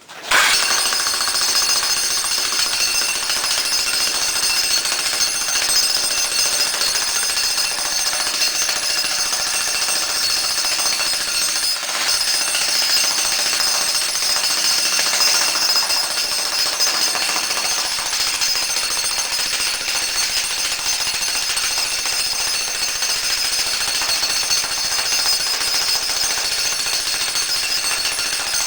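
Electric jackhammer starting up and hammering steadily into a concrete floor slab, chiselling an outline cut. It starts suddenly at the beginning, runs loud and even, and dips briefly about twelve seconds in.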